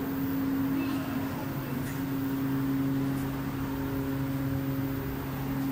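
A steady low machine hum over an even background hiss.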